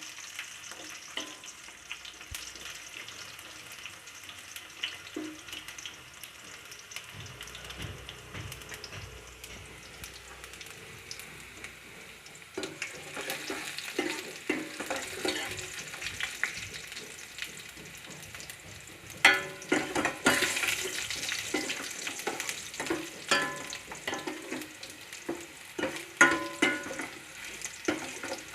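Garlic frying in hot oil in a pan, with a steady sizzle. It is being stirred, the utensil scraping and knocking against the pan, and the strokes come thick and loud from about two-thirds of the way in.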